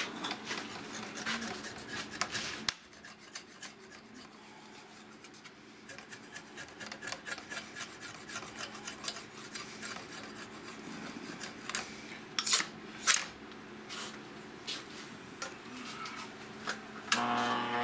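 Scraping, rubbing and clicking of a steel chainsaw bar being handled and slid across the metal table of a bar-dressing grinder. Near the end the grinder's electric motor switches on and runs with a steady hum.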